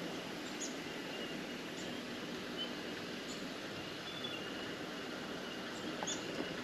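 Suzuki Grand Vitara 4WD's engine running low and steady as it drives slowly along a rough track, with a few faint, short, high bird chirps over it.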